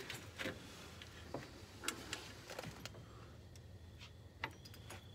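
Faint, scattered metallic clicks and ticks of a tapered punch and bolt being worked by hand while a heavy compressor is lined up on its engine bracket.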